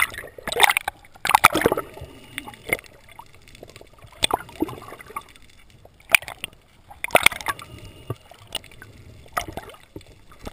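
Water gurgling and sloshing around an underwater camera, in irregular bursts a second or two apart.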